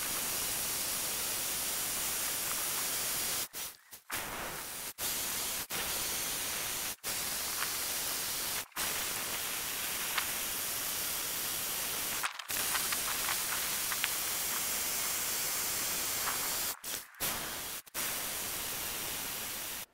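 Bosch rotary hammer with a 1-inch bit drilling into a granite-like boulder: a steady, harsh rattling din that drops out for split seconds about ten times.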